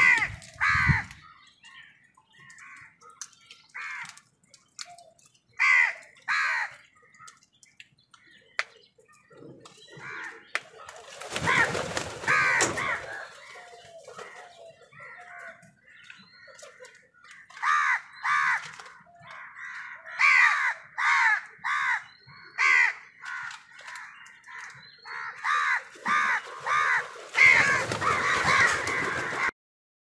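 House crows cawing repeatedly, with harsh calls coming singly and in quick runs of several. Two spells of rushing noise lie under the calls, one about a third of the way in and one near the end.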